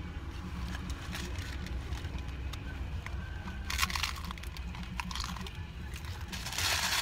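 A paper taco wrapper crinkles as it is opened about four seconds in, then a crunchy hard-shell taco is bitten into near the end. A steady low rumble inside a car runs underneath.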